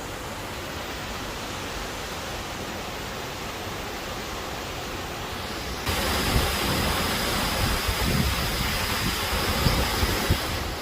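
Waterfall rushing, a steady hiss of falling water. About six seconds in it turns suddenly louder and brighter, with gusts of wind buffeting the microphone.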